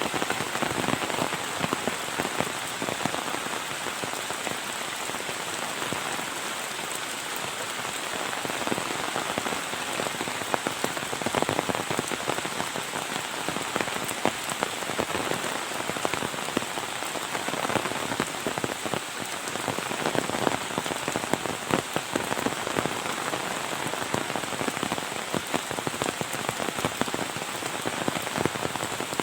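Heavy rain falling steadily: a dense hiss with countless small drop impacts.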